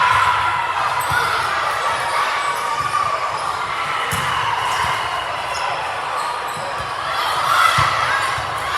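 Indoor gym crowd: many voices talking and calling out at once, with a few dull thuds of a ball hitting the floor or a hand.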